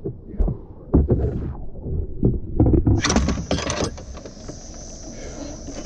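Knocks and thumps of a plastic whitewater kayak and wooden paddle being carried and handled. About halfway through, a steady hiss starts suddenly.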